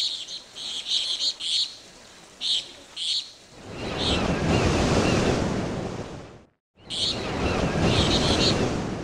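Short bird chirps in quick bursts, then a loud rushing wash of noise, like surf, that swells in about three and a half seconds in, cuts out for a moment about two thirds of the way through, and comes back with more chirps.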